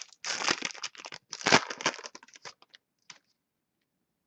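Irregular crinkling and rustling from a pack of trading cards and its wrapper being handled, for about two and a half seconds, with a couple of faint ticks after.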